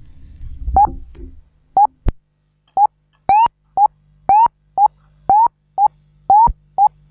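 The tail of a reggae song dies away, then comes a series of short electronic beeps, about two a second, each rising slightly in pitch, over a steady low hum.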